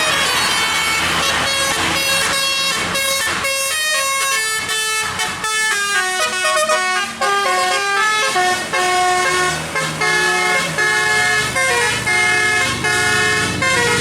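Bus telolet horn, a multi-tone musical air horn, playing a tune of stepping notes, with a fast run of short notes in the middle and longer held notes toward the end.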